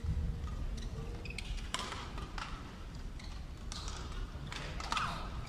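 Badminton rally: sharp cracks of rackets striking a shuttlecock, about six of them at irregular gaps of half a second to a second, over a steady low rumble of a large indoor arena.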